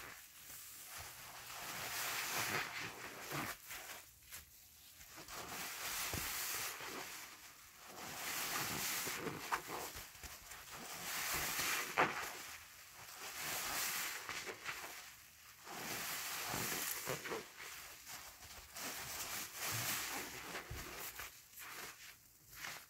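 A soapy HDX sponge full of thick pine-cleaner foam being squeezed and kneaded by hand, the wet foam squishing and crackling in repeated swells about every two seconds.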